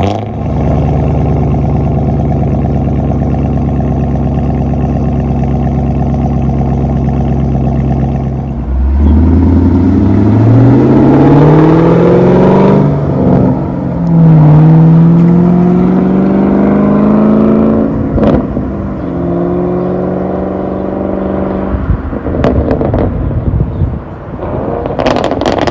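Straight-piped 2019 Chevrolet Camaro SS 6.2-litre LT1 V8 with mufflers deleted, running at a steady low note, then revving up with its note climbing twice, broken by a brief dip about thirteen seconds in. A sharp exhaust pop comes about eighteen seconds in, and a run of backfire pops and crackles near the end as it comes off the throttle.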